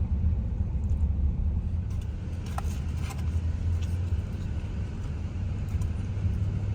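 Steady low road rumble of a car, heard from inside the moving vehicle, with a few faint clicks about two and a half seconds in.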